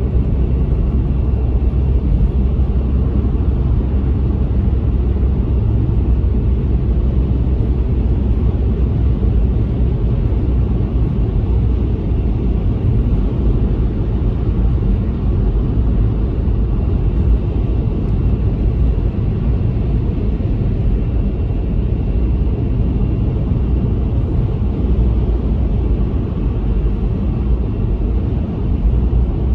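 A car on the move, recorded by a dashcam: a steady, unbroken low rumble of engine and road noise.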